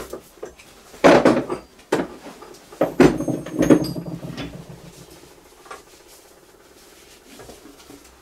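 Metal parts knocking and scraping as a liner-puller bung and bridge piece are handled and fitted on top of a cylinder liner in an alloy engine block. Several clunks in the first four seconds, then quieter fiddling.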